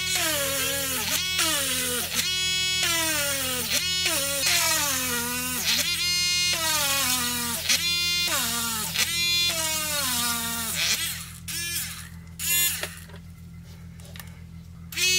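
Background music: a melody of sliding, bending notes over a steady low drone. It thins out for a few seconds near the end.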